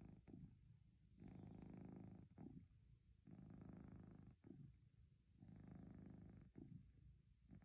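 Domestic cat purring close by, a low rumble that swells and eases with each breath, about once every two seconds.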